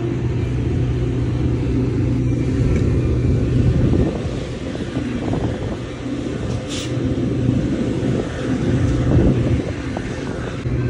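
A Metra double-deck passenger train passing close by: a loud, steady rumble and clatter of steel wheels on the rails, over a steady low hum, with a brief high click about seven seconds in.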